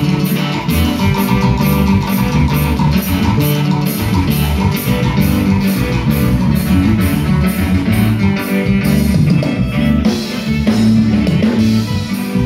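Live band music through large PA speakers, led by guitar and bass over a steady beat of about three strokes a second.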